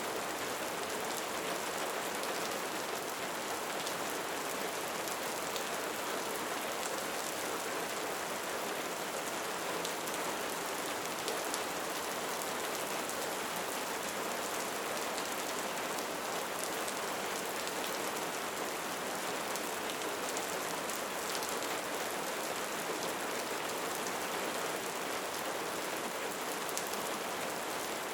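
Rain falling steadily: a dense, even hiss of drops with fine pattering through it.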